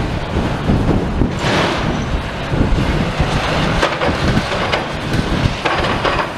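Gusting wind buffeting the microphone over the low rumble of demolition machinery clearing debris, with a few short clanks in the middle.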